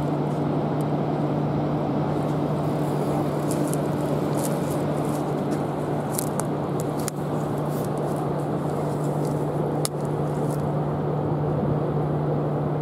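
A steady mechanical hum at one unchanging low pitch over an even rushing noise, with faint scattered clicks.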